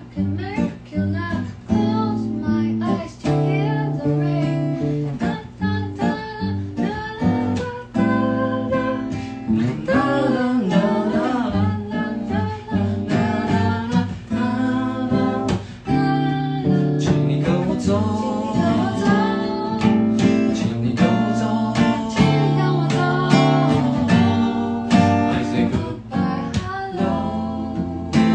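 Acoustic guitar strummed in a steady rhythm, with voices singing a song over it.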